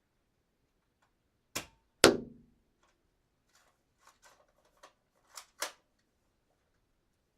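A dart gun firing and being cocked: a click, then about half a second later a sharp shot with a short ringing tail, followed by a run of small clicks and two sharper clacks near the end from the cocking mechanism.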